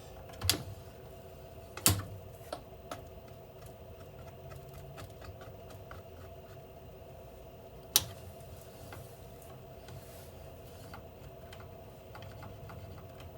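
Hotpoint washing machine starting a rinse-and-spin programme: a steady hum, with several sharp clicks and knocks, the loudest about half a second in, about two seconds in and about eight seconds in.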